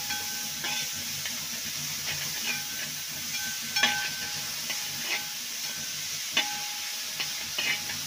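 Chopped vegetables sizzling in hot oil in a wide metal uruli as they are stir-fried, with a spatula scraping and knocking against the pan about a dozen times at irregular intervals, several knocks ringing briefly.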